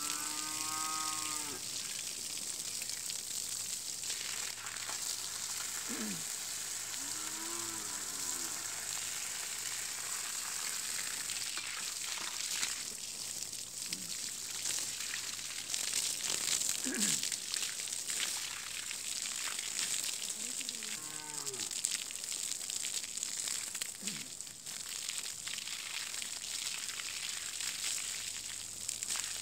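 Water spraying steadily from a garden hose onto dry soil and a brush pile, a continuous hiss. Cattle low several times, some calls long and arching, others short and falling in pitch.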